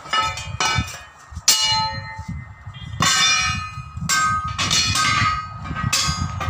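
Steel truck wheel rim parts clanging as they are worked on by hand: about eight sharp metal strikes, each ringing out like a bell before it fades.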